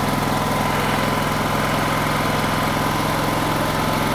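Honda 6500S portable generator's engine running at a steady speed on its first start after being rebuilt, producing power with nothing plugged in.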